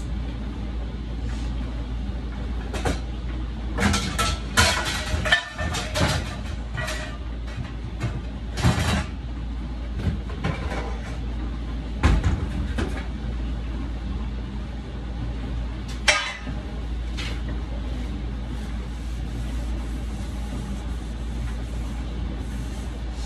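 Kitchen clatter of cookware being handled as a baking pan is got out: a run of sharp knocks and rattles a few seconds in, then single knocks later, over a steady low hum.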